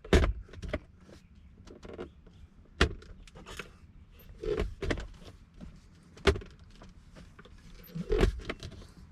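C6 Corvette center console lid being shut and opened again, its new latch snapping closed with sharp clicks and thumps a second or two apart, about five times.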